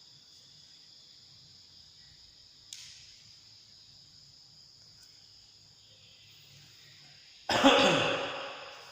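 A man coughs loudly once near the end. Under it, insects chirr steadily, and there is a faint click a few seconds in.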